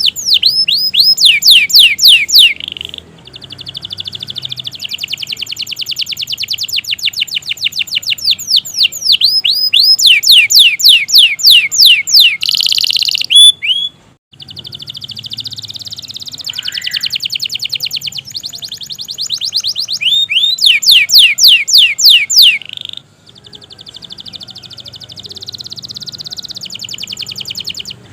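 Domestic canary singing a long, continuous song: runs of quick downward-sweeping whistled notes alternating with rapid, even trills, with two brief breaks about halfway and near the end.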